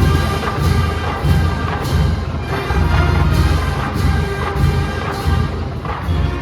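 Marching band playing a parade tune: brass instruments holding the melody over drums keeping a steady beat.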